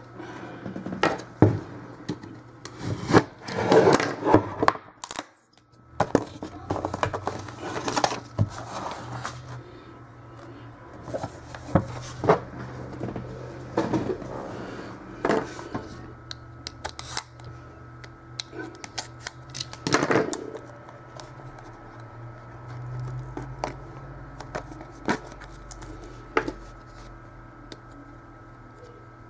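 Trading cards and their pack being opened and handled: scattered rustles, clicks and taps of wrapper and card stock, over a faint steady low hum.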